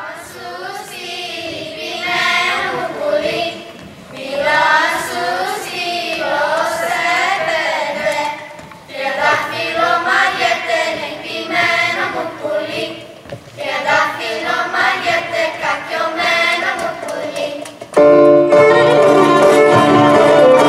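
A group of children singing a Greek folk song together. Near the end the folk band comes in suddenly and louder, with violin, to start the dance.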